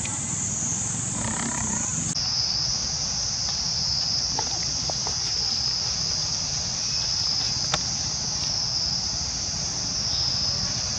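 Steady, high-pitched drone of a chorus of insects, dropping slightly in pitch about two seconds in, over a low background rumble.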